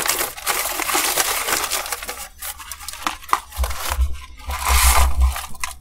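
A paper fast-food bag and wrappers being crinkled and crushed by hand as trash is stuffed in, in bursts of crackling rustle, with some dull low bumps in the second half.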